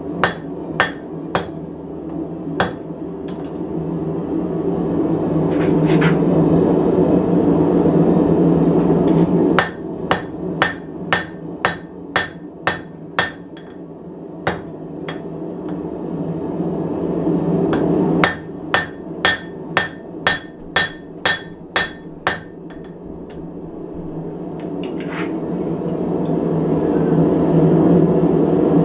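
Hand hammer striking hot coil-spring steel on an anvil, tapering the end into the point of an engraving chisel. The blows come in three runs, about two a second, each with a ringing clang. Between the runs a loud steady roar builds and fills the gaps.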